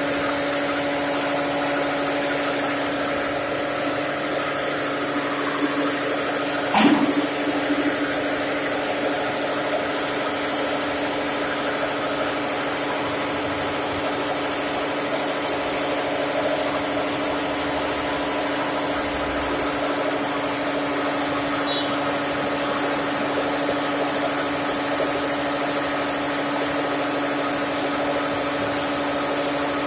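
Electric flour mill (pulverizer) running steadily while grinding grain into flour, a constant whirring hum. A brief rising sound stands out about seven seconds in.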